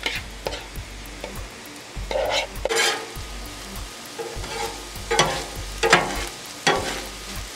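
Ground beef sizzling on a hot Blackstone flat-top steel griddle as a sauce is poured on and steams. A metal spatula scrapes and strikes the steel several times as the meat is mixed.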